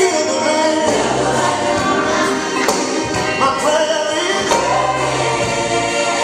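Worship song: voices singing over a band, with sustained bass notes and occasional percussion hits.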